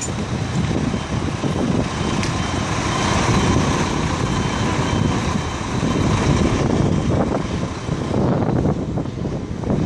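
Steady din of construction-site diesel trucks and machinery running. A faint beeping tone repeats for a few seconds partway through.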